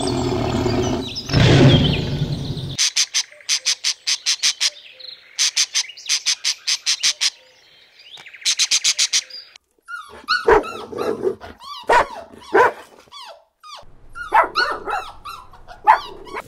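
A string of animal sounds. First a tiger's deep growl; then, from about three seconds in, several quick runs of sharp clicks; then, from about ten seconds in, short calls that bend up and down in pitch, ending with a dog barking.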